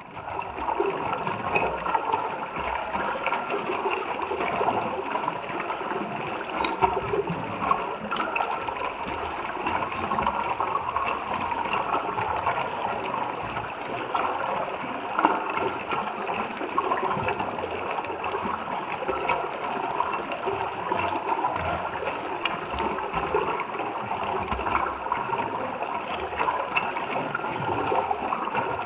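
Stream water running and bubbling, with a steady, even splashing and gurgling.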